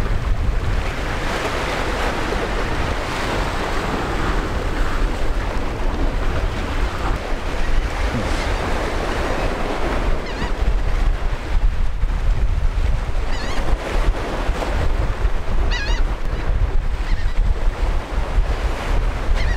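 Waves breaking and washing over a rock jetty, with wind buffeting the microphone in a heavy rumble. A few short gull calls cut through in the second half.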